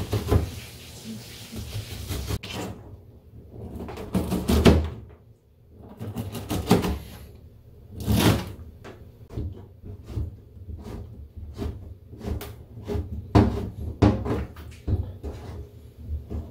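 Kitchen knife chopping on a plastic cutting board: a run of irregular knocks as the blade cuts through enoki mushrooms, bean sprouts and squid and strikes the board.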